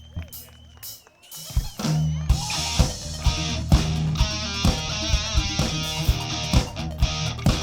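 Live rock band kicking into a song: after a few scattered hits, drums, bass and electric guitar come in about two seconds in and play on with a steady beat.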